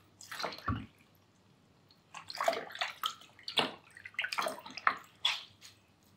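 Water splashing and sloshing in a shallow bathroom sink as hands wash a kitten with a wet cloth. There is a short splash about a second in, then a run of splashes over the next few seconds.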